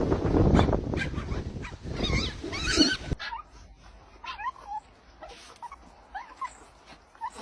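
Dog whimpering and whining in short high calls. Loud rumbling noise fills the first three seconds and then stops abruptly, leaving the short whines over a quiet background.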